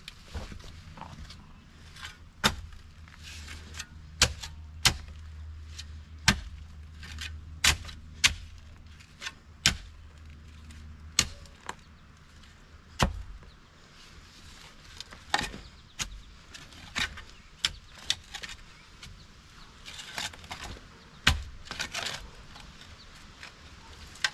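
A shovel striking and scraping into stony soil with hand digging: a string of sharp strikes about one every second. A low steady hum runs under the first half.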